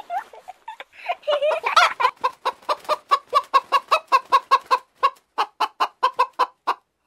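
Hen clucking: a few irregular calls, then a rapid, even run of short clucks, about four or five a second, with a brief pause part-way through.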